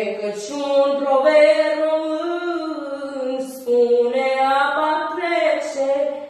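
A girl singing a Romanian-language folk song solo. She draws out long notes that bend and slide between pitches, with only brief breaks for consonants and breaths.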